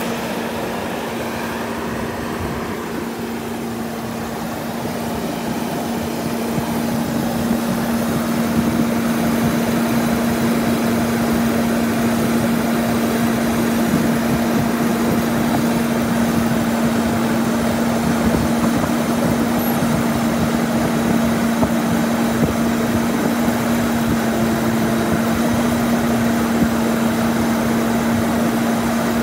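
Bucket truck's diesel engine running at idle with a steady hum, getting louder about seven seconds in and then holding steady.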